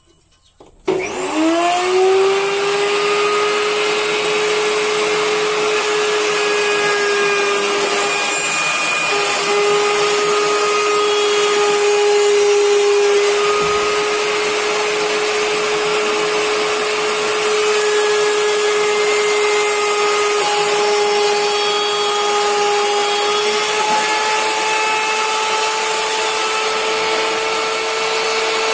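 Electric woodworking machine built into a shop table starting up about a second in, its whine rising as it spins up, then running steadily at speed.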